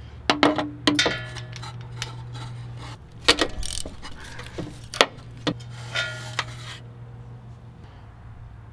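Socket wrench and long extension clinking and knocking against metal while working a glow plug in the engine bay, a string of irregular sharp clinks with brief ringing over a steady low hum.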